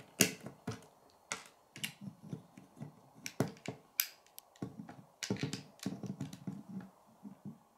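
Plastic Lego bricks clicking as they are pressed together and handled: a scattering of short sharp clicks, the two strongest a little past the middle, with softer clatter between.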